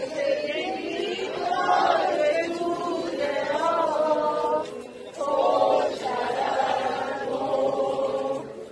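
A crowd of people singing together in unison, voices holding long notes.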